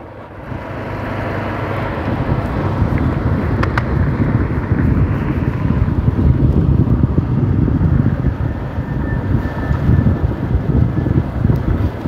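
Motorcycle riding along, its engine running under wind gusting on the microphone.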